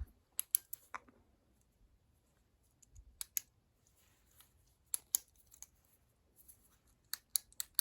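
Scattered sharp clicks, with a quick run of several near the end, from a small flashlight's switch being pressed on and off while the light fails to come on.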